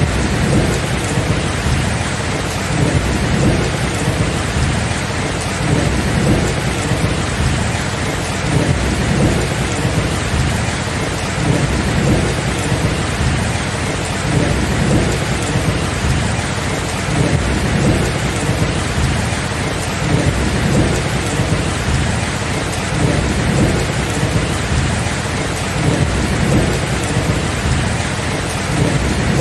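Steady heavy rain with thunder rumbling low and continuously, swelling and easing every few seconds without any sharp cracks.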